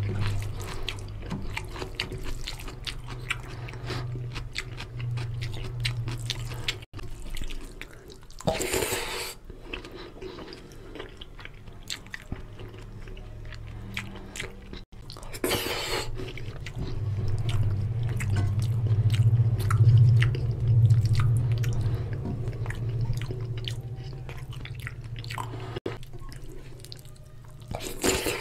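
Close-miked chewing and wet mouth sounds of a man eating rice and oily mutton fat curry with his hand, along with fingers squishing curry-soaked rice on the plate. A few short rushing noises break through now and then.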